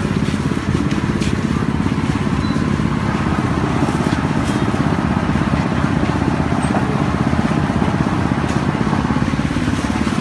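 An engine running steadily with a fast, low pulsing throughout.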